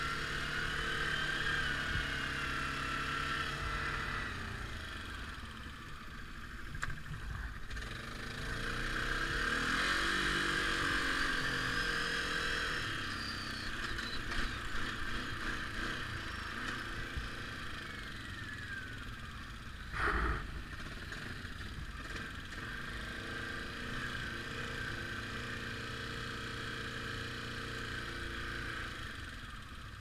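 ATV engine running along a trail at varying throttle, its pitch rising and falling around ten seconds in. A brief thump about twenty seconds in.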